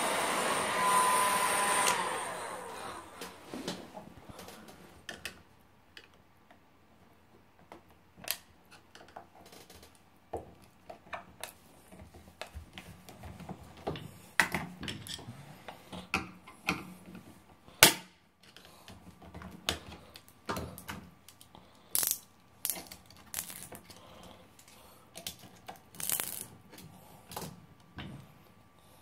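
Hot-air gun blowing steadily, switched off about two seconds in. Then scattered clicks, taps and scrapes of screwdrivers against the metal housing of a car engine control unit as its sealed lid is pried open.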